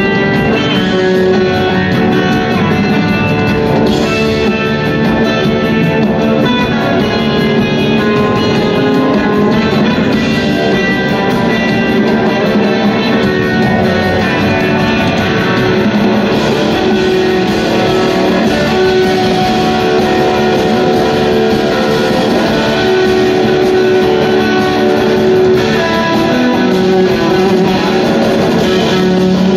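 Live band playing an instrumental jam, with electric guitar to the fore over keyboards and drums.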